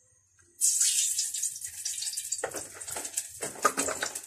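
Cooking oil poured from a plastic jerrycan into a pan on the stove: a loud hiss sets in suddenly about half a second in, then turns rougher and more irregular about two seconds later.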